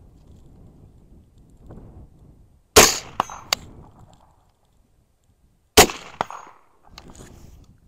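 Two rifle shots about three seconds apart from a Stag .223 rifle firing Hornady 73-grain Critical Defense, each followed a split second later by the fainter clang of the bullet striking a steel gong at 110 yards. Wind rustles on the microphone between the shots.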